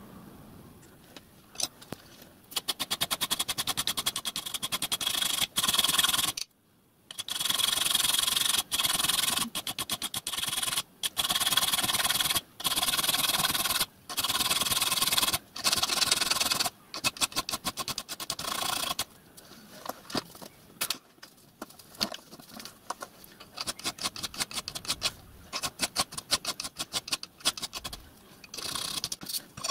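Small hand file rasping on the edge of a small brass piece clamped in a bench vice, in fast back-and-forth strokes: cleaning up cut-out brass letters. The strokes come in loud runs with short pauses, then turn lighter and sparser about two-thirds of the way through.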